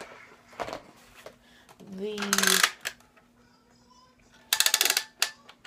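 Hard plastic clatter and clicks as a Nerf Doomlands Double Dealer blaster is picked up and handled, with a short burst of rapid rattling clicks near the end, the loudest sound. A brief hummed voice sound comes about two seconds in.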